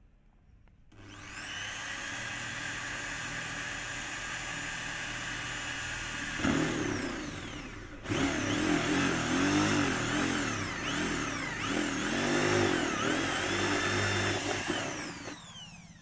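Corded electric drill with a hole saw cutting into a plastic bucket. The motor whines up to speed about a second in, then drops in pitch and labours from about six and a half seconds as the saw bites into the plastic. Its speed wavers while it cuts, and it winds down near the end.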